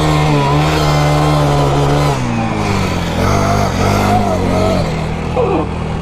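40cc four-stroke single-cylinder engine of a mini quad running under throttle, holding a steady pitch, then dropping about two seconds in and rising and falling as the throttle is worked.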